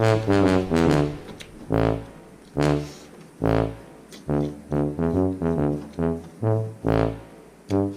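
Background music led by a brass melody of short, separate notes over a low bass line.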